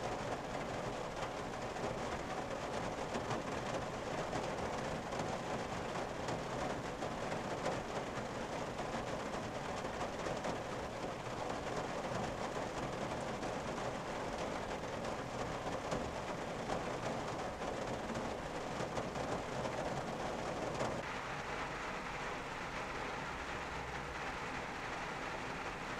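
Rain drumming steadily on a parked car's roof and windshield, heard from inside the cabin. Near the end the sound turns lighter and thinner.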